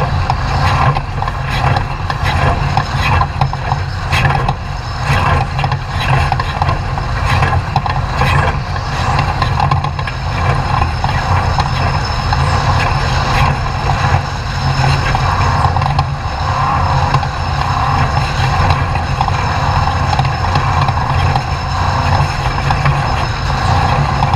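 Off-road race truck running at speed: steady engine and drivetrain noise with frequent knocks and rattles, which thin out after about ten seconds.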